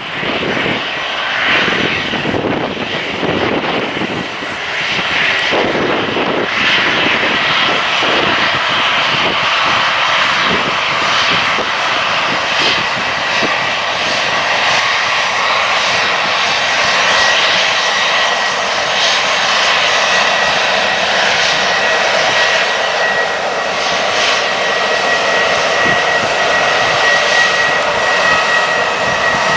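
An airliner's engines running loud and steady, a steady high whine over a heavy rushing noise; the sound comes in suddenly at the start.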